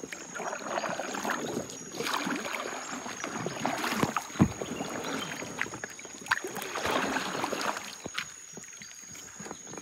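Irregular splashing and sloshing of shallow water, with scattered knocks and rustles, over a steady high-pitched tone.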